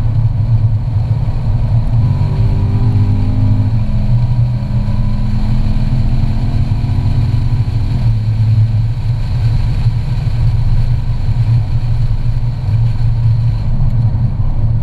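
Chevrolet C7 Corvette Grand Sport's 6.2-litre V8 heard from inside the cabin at track speed, under a steady low rumble of engine and road noise. The engine note climbs from about two seconds in, drops back near four seconds as it shifts up, then climbs again until it cuts off suddenly about halfway through.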